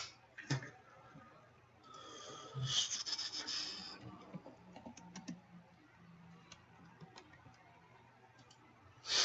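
Hands handling packaging and a card on a tabletop: a rustle of crinkly packaging lasting about two seconds begins about two seconds in, followed by faint scattered taps and clicks, with a short louder noise near the end.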